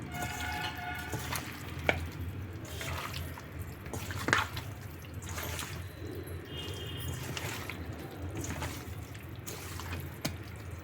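Hands mixing raw chicken pieces through an oily, wet spice marinade in a bowl: soft, scattered wet squelches and clicks.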